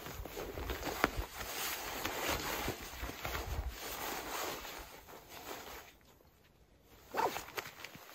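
A loaded backpack being hoisted onto the shoulders and settled, with its fabric and straps rustling and scraping and boots shifting in snow. The rustle dies down for about a second near the end, then comes one short, louder scrape.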